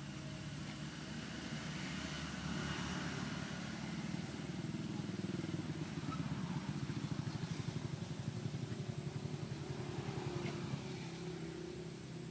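A motor vehicle's engine running, growing louder through the first half with a fast throb at its loudest, then fading near the end, like a vehicle passing by.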